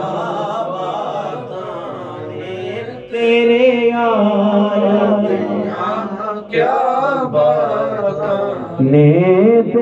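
Male voice singing a Punjabi Sufi kalam in long, drawn-out melismatic phrases with no clear words, over a steady low held note.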